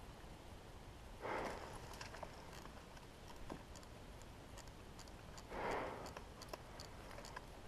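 Two short, soft whooshes about four seconds apart, with scattered faint clicks and crackles in between: a person moving quietly on foot through dry shrubs, close to the microphone.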